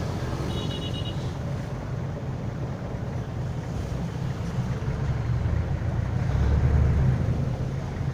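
A jeepney's diesel engine running, with the steady hiss of heavy rain, heard from inside the vehicle; the engine rumble grows louder about six seconds in.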